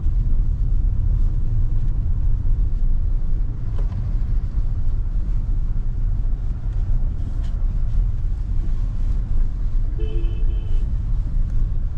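Steady low road and tyre rumble inside the cabin of a Kia Seltos on the move, over a rough road. A short pitched tone sounds once about ten seconds in.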